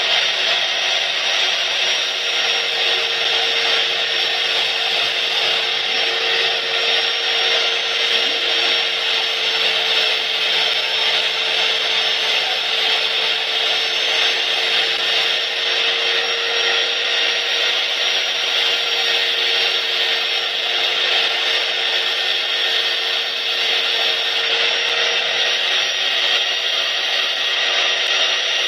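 Electric angle grinder running steadily with a sanding disc, a steady high whine with a strong hiss over it. Bamboo sticks are pressed against the spinning disc and sanded down into round pegs.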